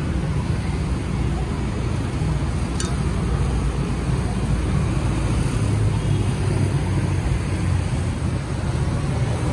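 Steady low rumble with an even hiss: meat juices and melting butter cooking on a large hot steel tawa, against road traffic.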